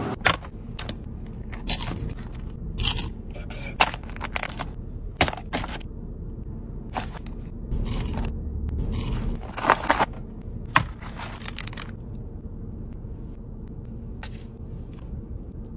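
Fried food and its cardboard and paper packaging being handled, heard as repeated short scraping, crackling and crunching sounds over a steady low hum.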